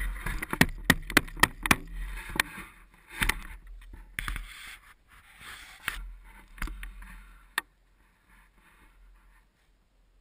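Snow shovel scraping and knocking as it pushes and throws snow on a wooden deck, heard through a camera mounted on the shovel: a quick run of sharp knocks and scrapes, easing off, with one last sharp knock a little after seven seconds.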